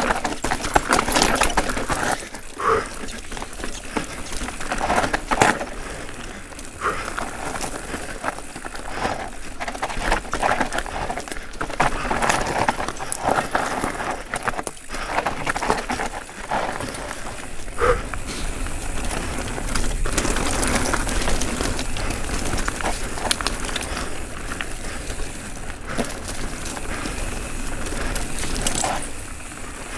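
YT Jeffsy 29 enduro mountain bike descending a rocky dirt trail: tyres rolling over gravel and stones, with frequent sharp knocks and rattles from the bike over bumps. The loudness rises and falls with the terrain.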